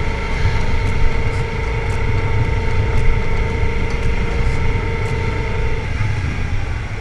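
Yamaha MT-07's 689 cc parallel-twin engine running at a steady cruising speed, its steady note dropping away about six seconds in, under heavy wind rumble on the helmet- or bike-mounted camera's microphone.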